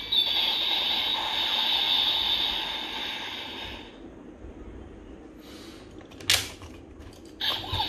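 DX Build Driver toy belt playing its electronic sound effects through its small speaker, fading out about four seconds in. About six seconds in comes a sharp plastic click as a Fullbottle is pulled from its slot, and a further electronic sound starts near the end.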